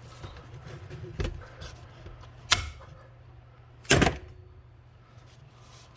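Three sharp knocks, about a second and a half apart and the last the loudest, as the freshly riveted leaf blower nozzle and tools are handled, over a low steady hum.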